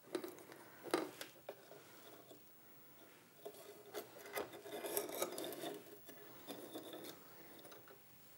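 Thread being pulled through the guides of a household sewing machine while it is threaded by hand: faint rubbing and scraping of thread and fingers on the plastic housing, with a few light clicks near the start and about a second in, and denser rubbing in the middle.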